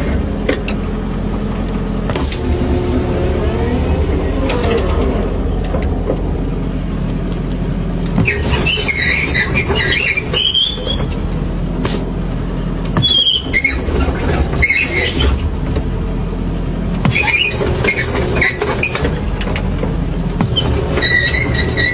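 Small engine of a motorised hoe (mini tiller) running steadily. High-pitched squeals sound over it in four bouts.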